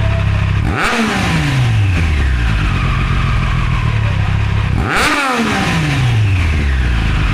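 Triumph Street Triple 765 R's inline three-cylinder engine idling through an Akrapovic carbon-titanium slip-on exhaust with its dB killer fitted. It is blipped twice, about a second in and again about five seconds in: each time the revs shoot up and fall back smoothly to idle.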